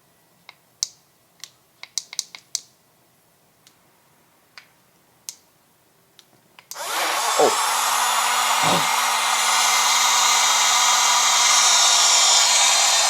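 Small electric blender handled with a string of clicks and knocks, then switched on about seven seconds in and running steadily with a loud, even motor whir.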